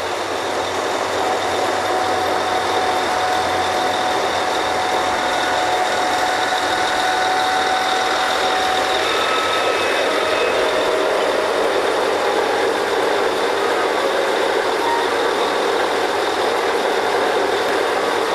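Drilling rig machinery running with a steady, loud mechanical noise and a thin high whine. It swells over the first second or two, then holds even.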